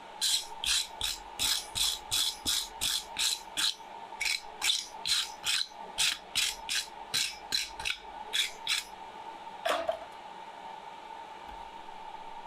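Blacksmith's hand tool working a piece of hot steel at the anvil: a quick run of about twenty sharp strokes, two to three a second, with a short pause partway through. The strokes stop, and one last knock rings briefly. A steady hum runs underneath.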